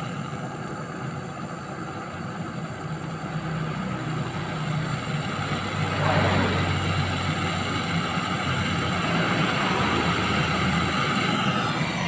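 Gas brazing torch flame burning steadily at the refrigerator's charging pipe while it is brazed shut, getting louder about halfway through.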